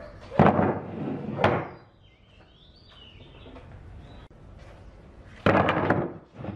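Pine boards knocking and clattering as they are set down on a wooden tabletop: a clatter about half a second in, another knock around a second and a half, and a longer clatter of boards near the end.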